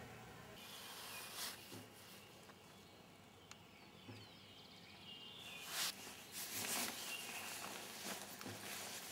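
Faint ambient background noise, with a few short, soft noisy bursts about six and seven seconds in.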